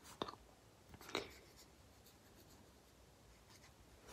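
Marker tip scratching across paper in two short, quick strokes, about a quarter second and a second in, then faint light rubbing.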